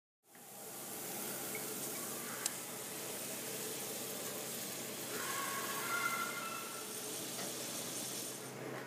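Steady kitchen hiss with no clear single source, with one sharp click about two and a half seconds in and a little faint clatter a few seconds later.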